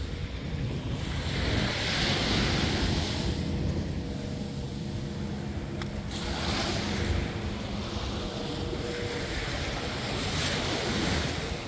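Ocean surf breaking on a beach in three swells of hiss about four seconds apart, over a steady low rumble of wind on the microphone.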